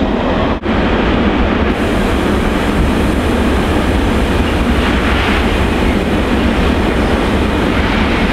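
Freight train of intermodal tank containers running past, a steady loud noise of wheels on the rails, broken for a moment about half a second in.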